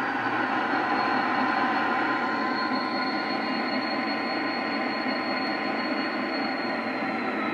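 EMD 16-645E3 turbocharged diesel engine sound from a Zimo sound decoder, played through a G-scale GP40 model's small loudspeakers. The engine runs steadily under a high turbo whine that slowly falls in pitch and drops a little further near the end.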